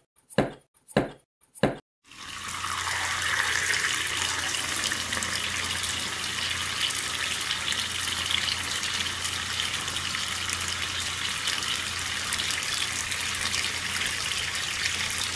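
A few sharp chopping knocks on a wooden cutting board, about two a second, stopping about two seconds in. Then water pouring and splashing steadily into a basin.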